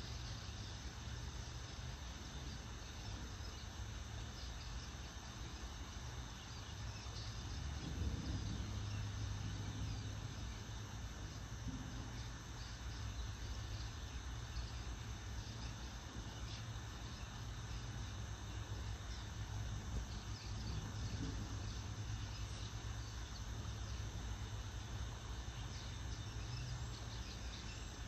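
Steady outdoor background noise: a constant low hum under an even hiss, with faint high chirps that may be insects.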